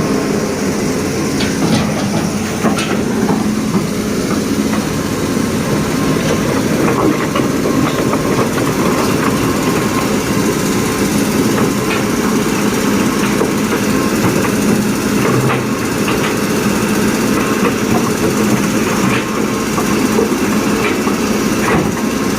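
Heavy machine engine running steadily, with scattered light clicks and knocks.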